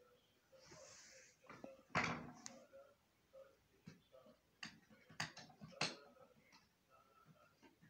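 A few scattered knocks and clicks in a quiet room, the loudest about two seconds in, then a run of sharp clicks around five to six seconds.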